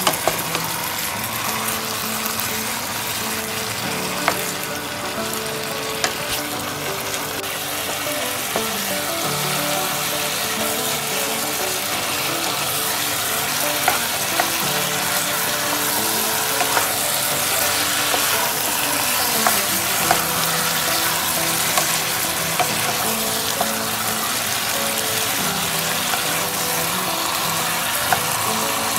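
Chicken pieces sizzling as they sauté in a metal pot, stirred with a wooden spatula that scrapes and now and then knocks sharply against the pot.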